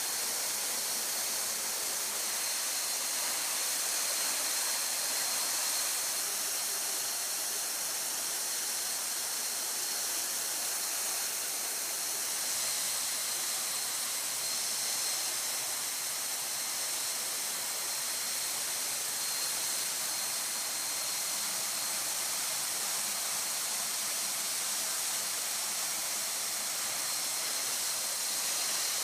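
Steady rushing hiss of air streaming past an open aircraft jump door, with a faint high whine running through it.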